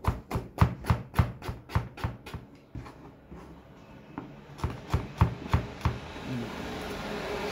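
Kitchen knife chopping on a cutting board in steady strokes about three a second. The strokes pause about three seconds in, then a second run follows. A steady noise builds near the end.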